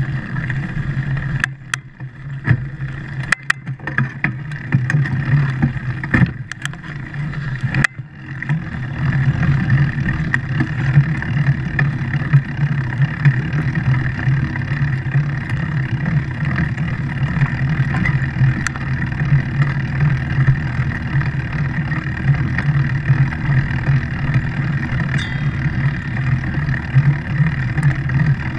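A vehicle's motor running steadily as it drives across beach sand. In the first eight seconds there are several sharp knocks and clatters and the sound dips, and after that it settles into an even drone.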